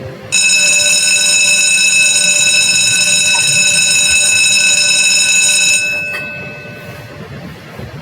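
Alarm tone played by a PC bell-scheduling program: a steady, buzzer-like ring that sounds for about five and a half seconds, then cuts off, leaving a short fading tail.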